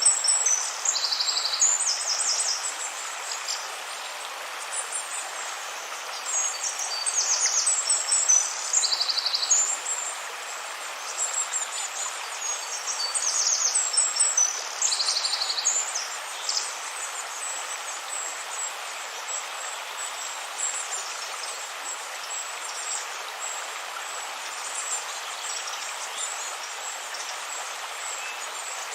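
Steady rushing of a flowing river, with small birds calling in quick high trills and chirps over the first half, then the water alone.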